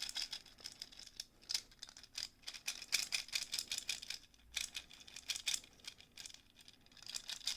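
Small plastic Ant-Man Happy Meal figure being handled and worked, giving irregular light plastic clicks and rattles, a few each second.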